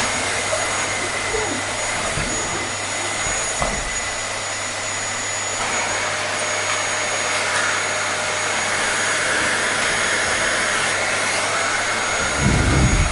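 Vacuum cleaner running steadily: a rushing hiss of airflow with a thin high motor whine. About six seconds in the tone shifts slightly, and a low bump sounds near the end.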